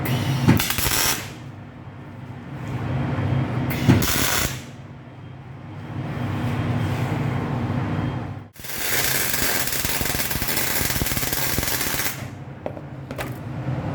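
Gas-shielded arc welding: the arc runs in two short bursts, about a second in and about four seconds in, then in one longer run of about three and a half seconds in the second half. A steady low machine hum sits under it throughout.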